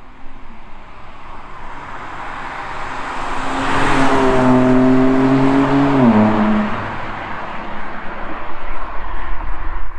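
Sports car passing at speed under acceleration. The engine note builds to a peak and drops in pitch about six seconds in as the car goes by, then stays loud as it pulls away.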